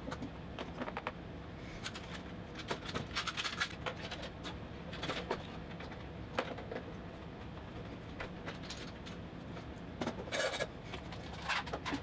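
Steel bar clamps being handled and tightened on a glue-up: scattered light metallic clicks and rattles with a few short scrapes of metal against wood.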